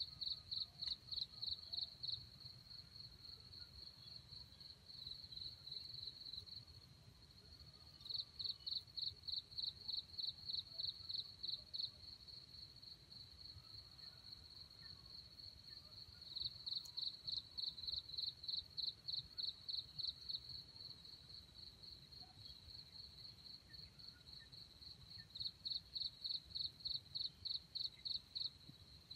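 Insect chirping: a steady high-pitched trill broken four times by runs of louder pulses, about four a second, each run lasting a few seconds.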